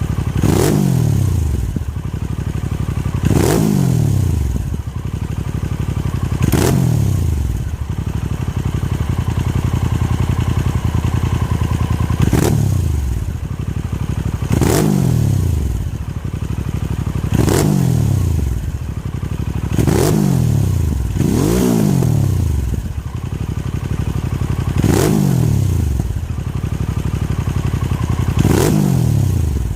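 Harley-Davidson Sportster S's Revolution Max 1250T V-twin idling and blipped on the throttle about ten times, each rev shooting up and falling back to idle over about a second.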